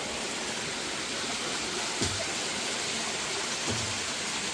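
Steady rush of running water, with a short knock about two seconds in and a dull thump near the end.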